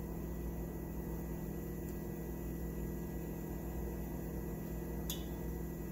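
Steady machine hum with a faint hiss from a kitchen appliance running, with two light clicks near the end.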